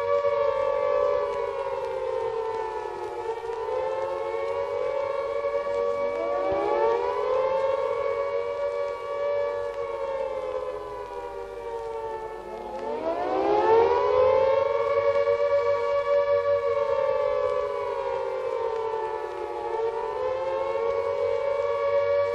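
Several sirens wailing together in slow overlapping rises and falls. One winds up from a low pitch about six seconds in and another about twelve seconds in, each then holding before sliding down.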